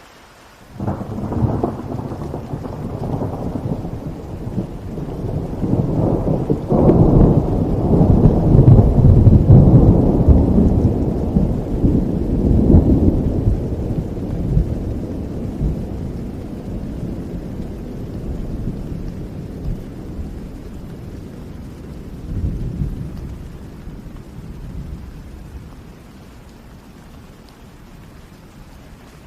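A long roll of thunder over steady rain: it breaks in sharply about a second in, rumbles loudest through the middle and dies away slowly near the end.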